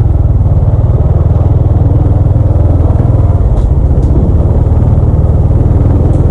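A small motorcycle's engine running steadily as the bike rides along at low speed, heard close up from the bike itself.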